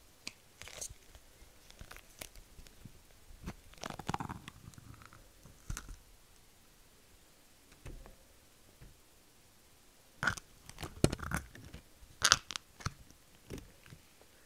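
Moonstone slime squished and stretched out of a small plastic cup close to the microphone: irregular wet, sticky clicks and pops with quiet gaps between them, growing denser and louder in the second half.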